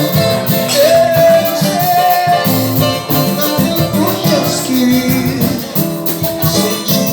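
A live band playing a romantic Brazilian song: singing over plucked strings and a steady percussion beat.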